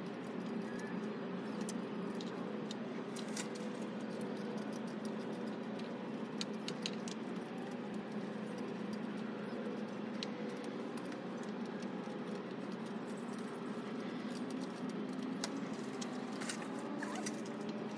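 Small metallic clinks and taps of bench parts and hardware being handled during assembly, scattered throughout, over a steady low hum.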